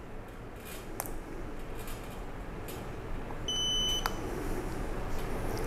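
Wireless remote meat thermometer switching on, giving one high beep about half a second long, with a light click a second in and another just after the beep.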